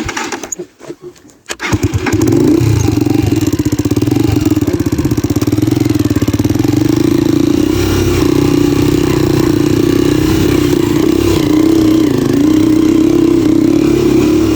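Motorcycle engine starting about a second and a half in after a few clicks, then running steadily.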